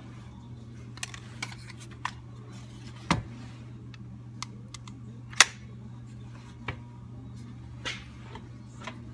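Scattered light clicks and taps of a two-part epoxy applicator gun and hand tools being handled over a snowblower engine's crankcase, with one sharp click about five seconds in. A steady low hum runs underneath.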